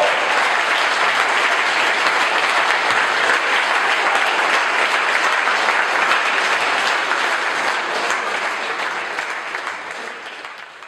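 Audience applauding, the clapping dying down over the last few seconds.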